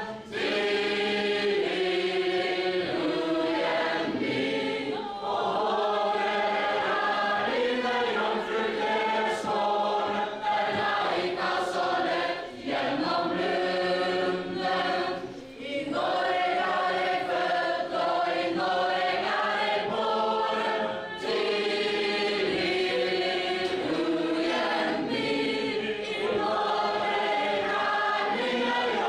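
A mixed group of men, women and children singing a traditional Norwegian ballad together without instruments, as the song for a ring dance. It goes in sung lines with short pauses for breath between them.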